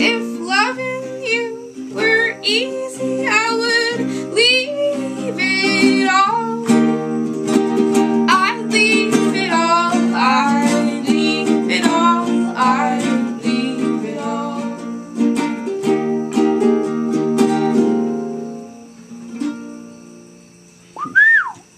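Acoustic guitar and a small-bodied guitar strummed while two women sing together; the song winds down and the last chord rings out near the end. A short whoop from a voice comes just after the music stops.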